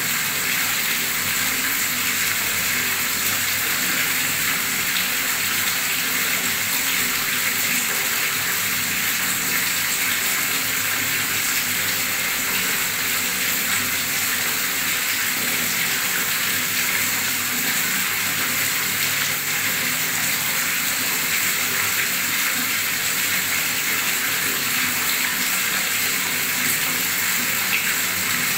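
Heavy stream of tap water pouring into a pool of water, splashing and bubbling steadily.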